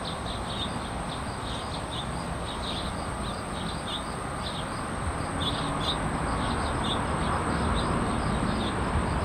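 Crickets chirping loudly in a dense, uneven chorus over a steady high insect whine. A low rumble underneath swells in the second half.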